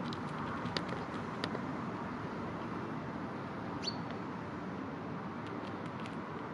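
Outdoor ambience: a steady low background rumble, with a few short sharp high clicks and one brief high bird chirp about four seconds in.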